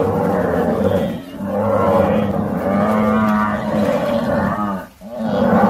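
African buffalo bellowing: long drawn-out moaning calls of steady pitch, one after another, broken by short pauses about a second in and near the end.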